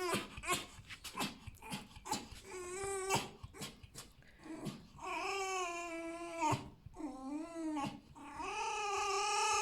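Fox whining: a short whine, then two long, slightly wavering whines of about a second and a half each, with a few short clicks in the first seconds.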